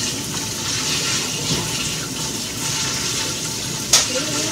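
Water running steadily from a kitchen tap, with a single sharp knock near the end.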